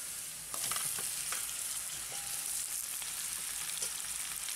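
Sliced star fruit sizzling in hot coconut oil with minced garlic and hot peppers; the sizzle grows louder about half a second in as the fruit goes into the pan. A few light knocks of the metal spoon and bowl against the pan.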